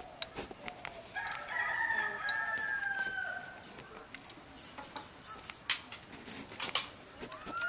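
A rooster crows once, a long call of about two seconds starting about a second in, while scattered sharp clicks and knocks sound around it. Another call starts near the end.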